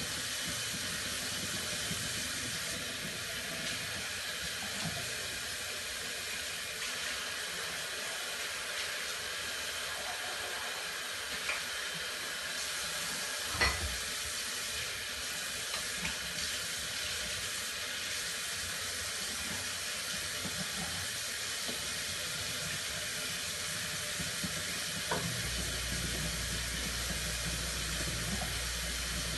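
Tap water running steadily into a sink while dishes are washed by hand, with a few scattered clinks of dishware; the loudest knock comes about halfway through.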